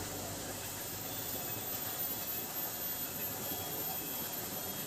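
Steady rushing hiss of water running through a stone dam sluice gate, with no change in level.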